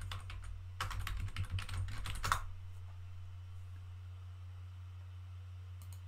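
Typing on a computer keyboard: a quick run of key clicks lasting about a second and a half, then stopping, with one more faint click near the end. A steady low hum runs underneath.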